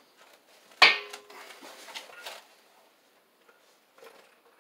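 A sharp metallic snap with a brief ring about a second in, followed by a second or so of scraping and rustling as Romex electrical cable is worked with a hand tool.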